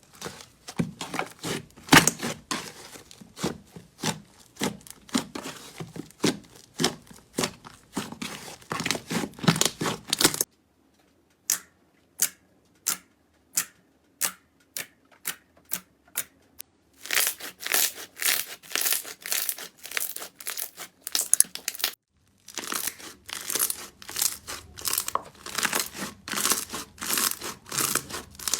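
Slime being squeezed and pressed by hand, making dense crackling, crinkling pops. In the middle it thins to single sharp pops about twice a second, and later the dense crackling breaks off suddenly and starts again.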